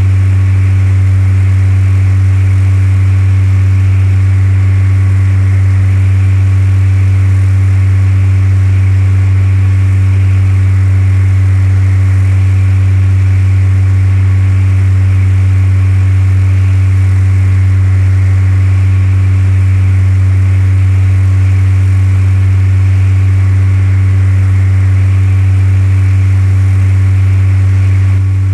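Cessna 172's piston engine and propeller droning steadily at constant power, a loud unchanging low hum.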